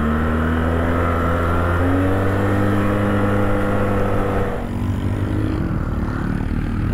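ATV engine running steadily. Its note steps up a little about two seconds in, then drops to a lower, rougher sound near five seconds, as the throttle eases.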